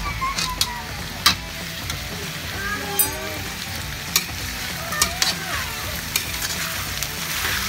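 Metal spatula stir-frying vegetables in a wok, with sharp clinks and scrapes against the pan over a steady sizzle of the food cooking in oyster sauce.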